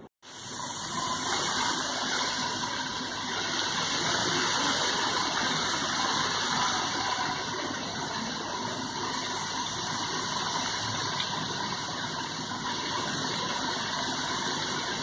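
Potato chips deep-frying in hot oil in a pan: a steady sizzle.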